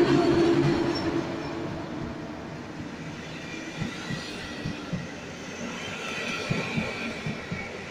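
PKP Intercity passenger carriages rolling past along a platform, their wheels clicking over rail joints in irregular pairs. The locomotive's steady hum fades out in the first second, and a faint high wheel squeal comes in near the end.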